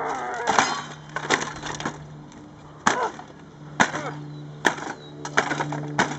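A spectrophotometer being smashed: a string of sharp hits with cracking and splintering, irregular and about a second apart, the strongest five in the first five seconds and smaller knocks near the end.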